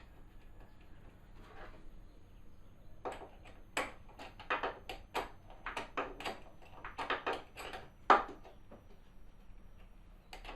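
A run of irregular knocks and clicks from hands and hardware at work on a wooden mobile base, with one sharper knock about eight seconds in.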